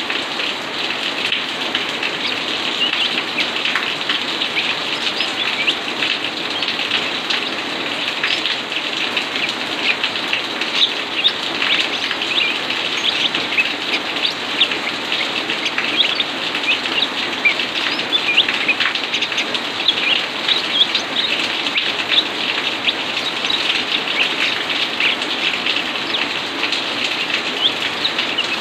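Steady rain falling on and around a wire birdcage: a continuous hiss that starts abruptly, dotted with many short, sharp high ticks and chirps, partly from the caged greater green leafbird.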